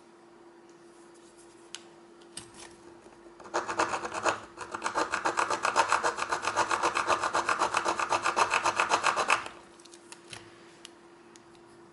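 A metal file rasped in rapid back-and-forth strokes across a padlock's steel shackle for about six seconds, after a few handling clicks: a file test of hardness. The shackle is judged not hardened.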